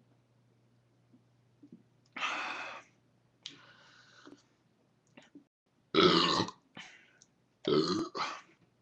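A man belching after chugging a 24-ounce can of carbonated beer: a couple of breathy sounds first, then two loud belches about six and eight seconds in.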